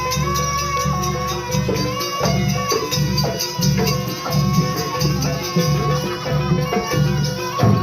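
Live jaranan music from a Javanese folk ensemble. Low drum strokes keep a steady beat under fast, dense rattling percussion and a held high tone.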